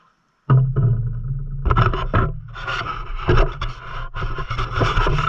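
A motor running steadily, cutting in suddenly about half a second in, with scraping and clattering over it.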